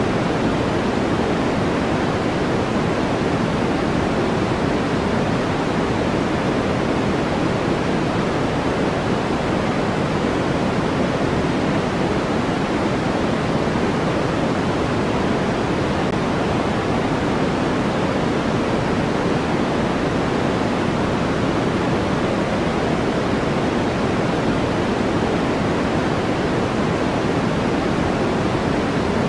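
Steady, unchanging white-noise track: an even rush of noise, fuller in the low-middle range than in the highs.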